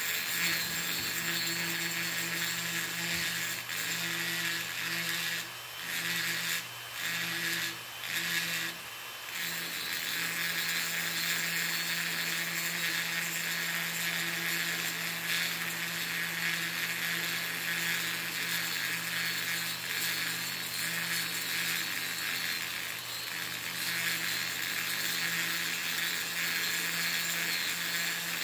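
Flexible-shaft Dremel rotary tool running steadily, its metal-cutting bit grinding and smoothing the exhaust port of a Stihl 034 AV chainsaw cylinder. The grinding dips briefly four times between about five and nine seconds in.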